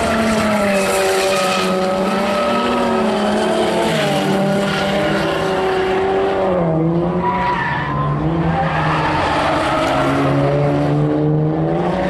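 Car drifting in circles: its engine is held at high revs, the note rising and falling with the throttle, while the rear tyres squeal and skid.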